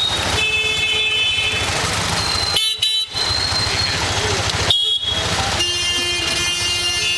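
Several vehicle horns honking again and again over the steady rumble of engines in dense street traffic.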